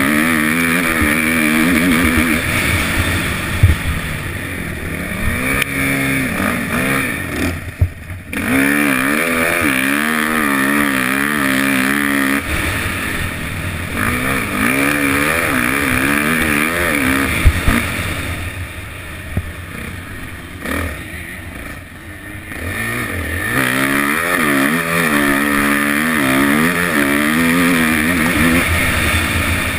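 Suzuki 450 motocross bike's four-stroke single-cylinder engine under hard riding, its pitch climbing and falling again and again as the rider accelerates and shifts. The throttle shuts off twice, about eight seconds in and again past twenty seconds, with a few short knocks from the bike over the rough track.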